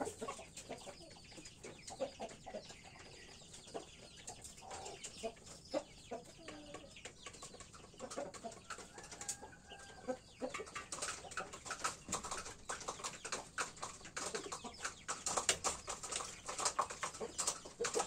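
Roosters clucking softly in a pen, with a dense run of short taps and scratches over the second half.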